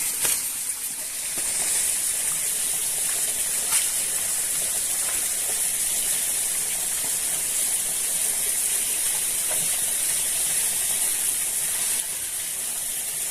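Steady rushing of flowing stream water, with a high hiss that comes up after a second or so and drops back near the end.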